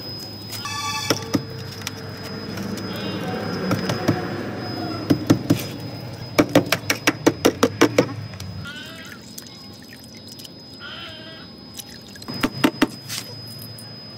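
A hammer knocking at a car's rusted-through steel rocker panel, breaking away rotten metal. It strikes in a fast run of about ten knocks at roughly five a second, then gives a few more knocks near the end.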